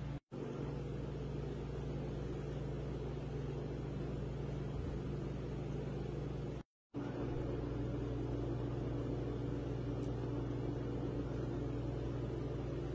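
Steady low hum of a kitchen appliance motor, cutting out briefly twice.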